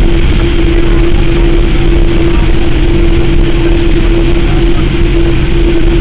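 Boeing 787-8 Dreamliner's jet engines and cabin noise, heard from inside the cabin while the airliner taxis: a loud, steady drone with a constant hum over a low rumble.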